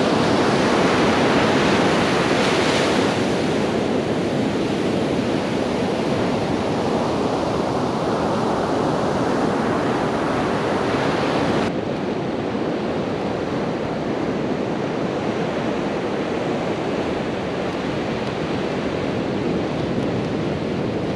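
Ocean surf breaking and washing up a sandy beach, a steady rush of waves. About halfway through, the sound turns abruptly duller, with less hiss in the high end.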